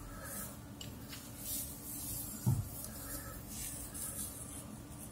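Soft hissing breaths recurring about once a second close to the microphone, with faint handling noise from fingers holding a cowrie shell up to the camera. One short low thump about two and a half seconds in is the loudest sound.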